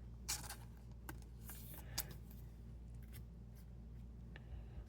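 Trading cards being handled and slid past one another: faint, scattered scrapes and light clicks.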